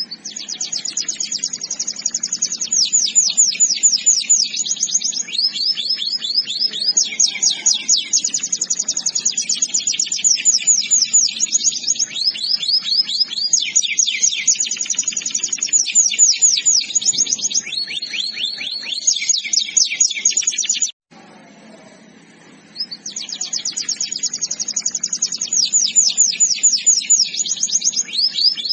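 Domestic canary singing: fast trills of rapidly repeated high notes, switching to a new trill every second or two. The song cuts off suddenly about three-quarters of the way through and picks up again about two seconds later.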